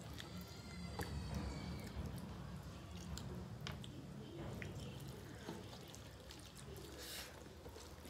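Quiet hand-eating at a table: fingers mixing rice and curry on steel plates, with scattered small clicks and scrapes, and chewing, over a steady low hum. A faint high call wavers through the first two seconds.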